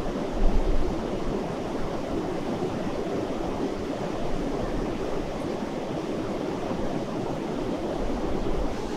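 Steady rushing of a mountain river, with wind rumbling on the microphone in gusts about half a second in and near the end.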